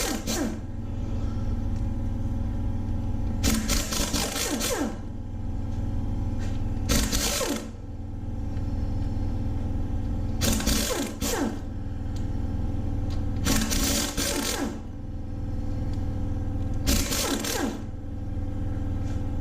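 Pneumatic impact wrench working bolts off an LS engine in six short bursts, each about a second long and winding down at its end, roughly every three to four seconds, over a steady low hum.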